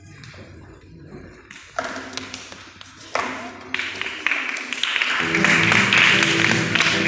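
Acoustic guitar playing live. There are two sharp struck chords about two and three seconds in, then fuller, louder playing from about five seconds in, with a patter of short taps over it.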